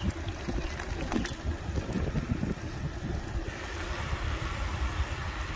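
Wind buffeting the microphone over low tyre-on-asphalt rumble from a Jetson Bolt Pro e-bike riding along a paved street, with a couple of light knocks about a second in. About three and a half seconds in, the noise shifts to a brighter hiss.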